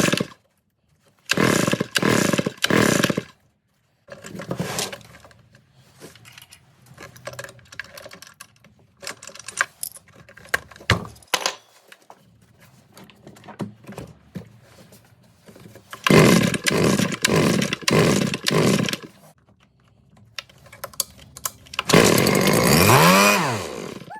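Husqvarna BT360 backpack blower's two-stroke engine after a new piston and cylinder: it fires in short bursts of about half a second, several in a row, with clicks and handling sounds between. Near the end it runs for about two seconds, its pitch rising and then falling.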